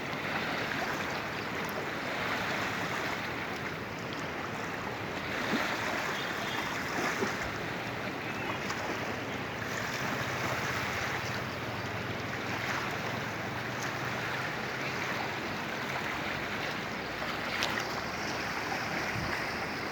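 The Narayani river in flood, its fast water rushing steadily.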